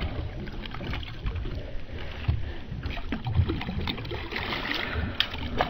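Sea water sloshing against the side of a wooden boat, with scattered dull knocks and splashes as a conger eel is hauled up out of the water over the gunwale. A couple of sharp clicks come near the end.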